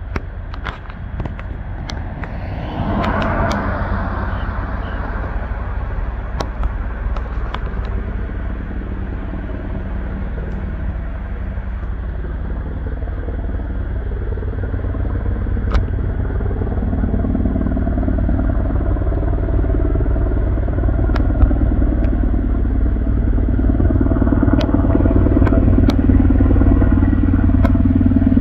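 Sikorsky UH-60M Black Hawk helicopter flying overhead: a steady low rotor beat with turbine engine noise, growing louder as it comes closer. A brief rush of noise comes about three seconds in.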